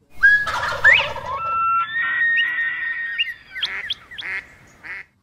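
An animal call: a rising glide into long, high held whistling tones, then a few short, harsher calls near the end that stop abruptly.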